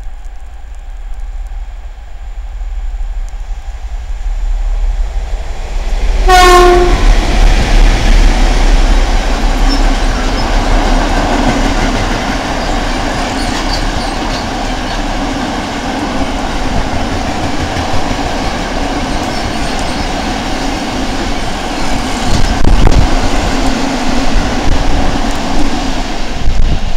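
A pair of SU46 diesel locomotives hauling a freight train approach and sound one short horn blast about six seconds in. They pass with engines running, followed by a long string of empty flat wagons rolling by with steady wheel clatter.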